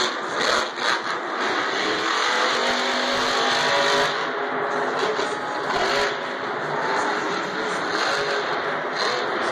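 Grave Digger monster truck's supercharged V8 engine revving up and down repeatedly as the truck drives, heard from the arena stands over a steady wash of crowd and arena noise.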